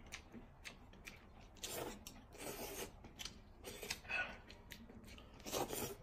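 People slurping rice noodles from bowls of broth, in several short sucking bursts of about half a second each with brief gaps between.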